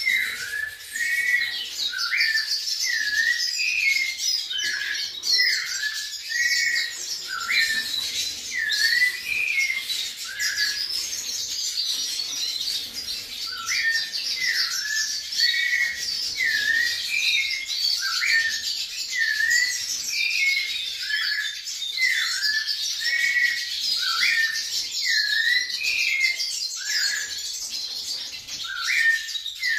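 White-necked thrush (sabiá-coleira) singing: a steady run of short whistled notes, each sliding up or down, about two a second, with a pause of about two seconds a little before halfway.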